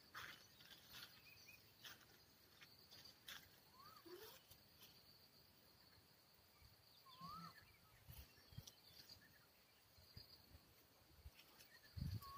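Near silence in the open: a faint steady high insect hum, with a few short chirping bird calls and occasional light handling clicks, and a low bump near the end.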